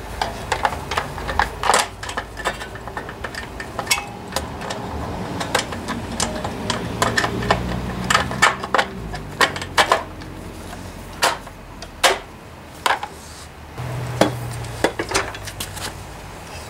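Hard plastic recoil-starter housing of a Subaru EA190V engine being fitted back over the flywheel: irregular clicks, knocks and rattles of plastic against metal, with a few sharper knocks near the end.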